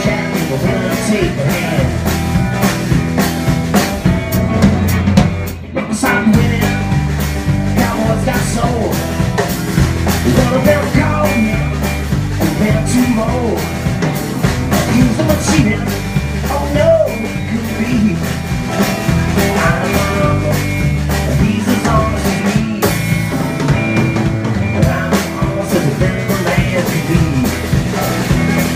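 Live band music: a drum kit, a guitar and an upright bass playing a country-rock song at a steady beat, with a brief break about five and a half seconds in.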